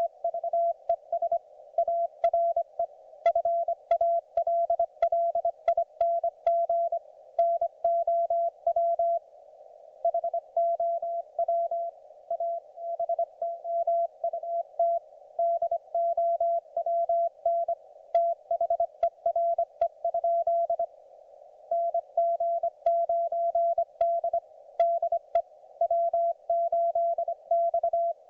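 Morse code (CW) from a YouKits HB-1B QRP transceiver: a single steady beep tone keyed on and off in dots and dashes over a narrow band of receiver hiss, with brief pauses between groups.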